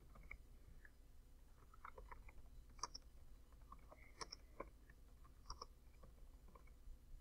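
Faint computer keyboard typing: scattered, irregular key clicks.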